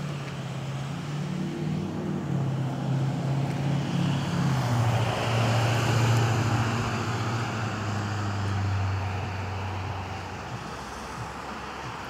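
A motor vehicle passing on a wet road: engine drone and tyre hiss grow louder to a peak about halfway through, then fade away.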